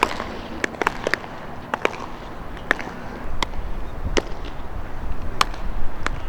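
Baseball practice: about a dozen sharp, irregular pops and cracks of balls hitting gloves and bats, over a low steady rumble.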